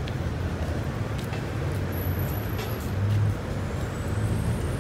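Outdoor street ambience dominated by a steady low rumble, like road traffic and engines running.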